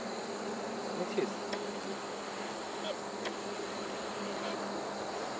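Steady chorus of night insects, with a few faint clicks.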